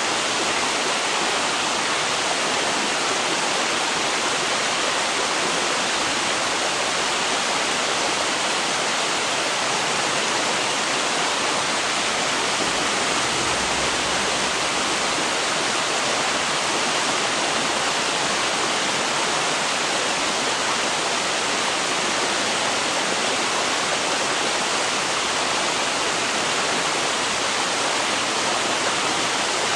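Steady rush of flowing river water, unchanging throughout.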